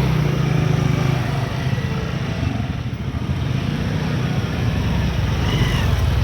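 Diesel engine of heavy earthmoving machinery running steadily, a low drone.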